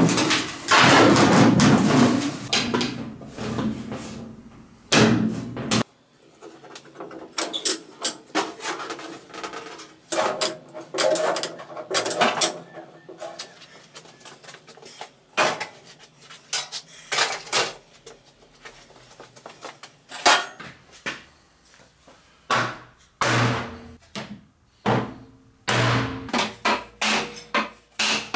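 Sheet-metal work: a bench lever shear snipping through sheet metal in a run of sharp separate clicks. Near the end, a hammer knocks the sheet's edge over against a clamped wooden block in a row of strikes, bending it into a fold.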